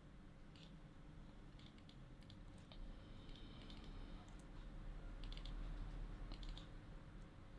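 A few faint, scattered clicks of a computer mouse and keyboard at uneven spacing, over a low steady hum.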